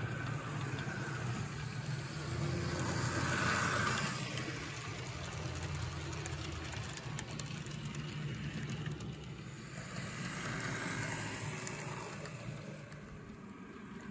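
Model trains, including an Athearn GP38 diesel locomotive, running on layout track: a steady motor hum and the rush of wheels on the rails, swelling twice as cars pass close by, with light clicking near the middle.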